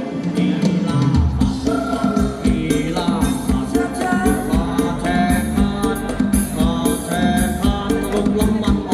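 Thai ramwong dance music from a live band: a bending, gliding melody line, sung or played, over a steady drum beat with tambourine-like percussion.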